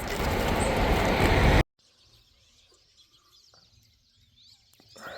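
Loud, steady rushing noise that cuts off abruptly about a second and a half in. After it comes a quiet stretch with faint bird chirps.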